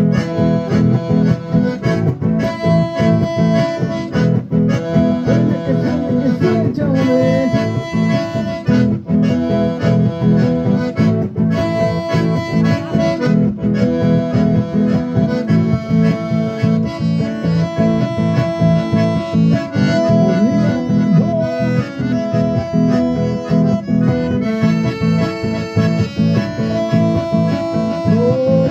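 A diatonic button accordion and an acoustic guitar playing an instrumental folk tune together with a steady, even beat.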